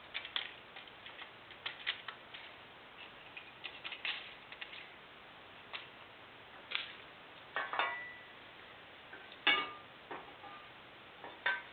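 Irregular light clicks and taps of feeler gauge blades and a precision straight edge being handled against a 420A engine block's main bearing saddles, during a line bore check. The loudest tap comes about nine and a half seconds in, and a couple of the taps ring briefly.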